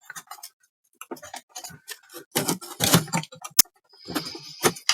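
Irregular small clicks, taps and knocks of tools and parts being handled on a workbench, with one sharp click about three and a half seconds in and a short scrape just after four seconds.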